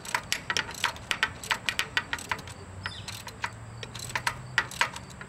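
Socket ratchet clicking in quick, irregular strokes, tightening the 3/4-inch nut on the alternator's mounting bolt.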